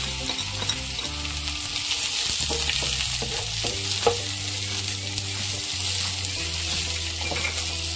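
Freshly added sliced onions sizzling in hot oil in a non-stick frying pan, stirred and scraped through with a slotted spatula. A sharp tap about four seconds in.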